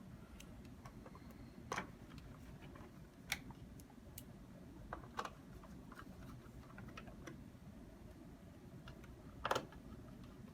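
Faint, scattered clicks and taps of a screwdriver driving Torx screws back in to secure a PS4's replacement power supply, the loudest click near the end.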